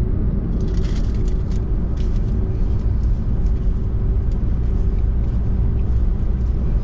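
Steady low rumble of road and engine noise inside a moving car's cabin, with a faint steady hum and scattered light ticks.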